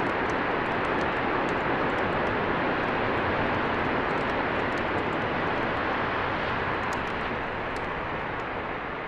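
Strong wind blowing, a steady rushing noise that starts to fade out near the end.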